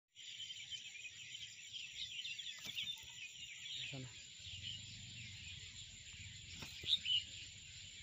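Faint chorus of small birds chirping in many quick, overlapping calls, over a steady high-pitched insect drone. A few soft clicks, with two louder chirps near the end.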